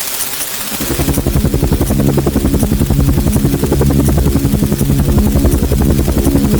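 Helicopter sound effect: rapid rhythmic rotor-blade chop over a steady engine drone, growing louder about a second in.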